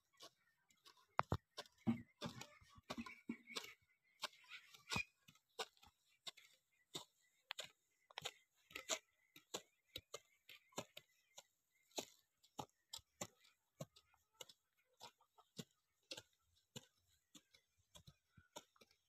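Short-handled hoes chopping into dry, grassy soil around saplings: a string of sharp, irregular knocks, one or two a second.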